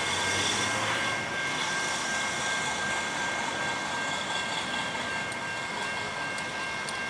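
Norfolk Southern freight train led by EMD diesel locomotives approaching from a distance, a steady even rumble with steady high-pitched tones above it.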